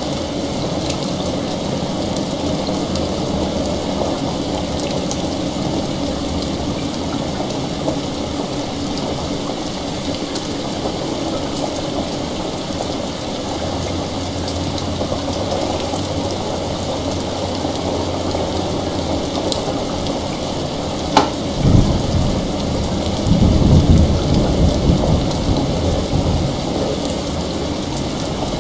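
Heavy rain falling steadily. About three-quarters of the way through, a sharp thunder crack is followed by low rolling thunder that rumbles for several seconds and then fades back into the rain.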